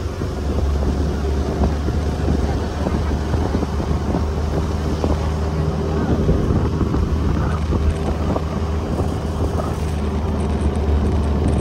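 Motor vehicle engine running steadily: a constant low drone with a steady hum, mixed with road or wind noise.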